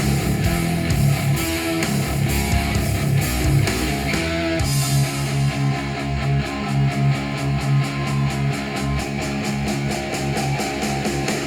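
Guitar-driven rock music played back through Adam Audio studio monitor speakers. About five seconds in the highs drop away and a fast, even pulsing runs through the rest.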